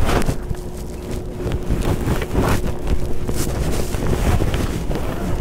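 Wind buffeting the microphone in a steady low rumble, with a faint steady hum underneath.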